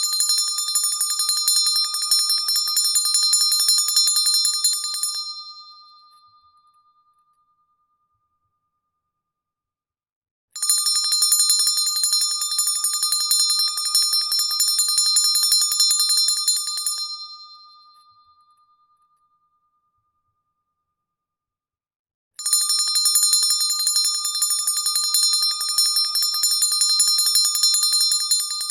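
Large bronze handbell shaken rapidly in three bouts of fast, continuous ringing, each about six seconds long, with a few seconds of silence between them. After each bout the bell's tone rings on briefly and dies away.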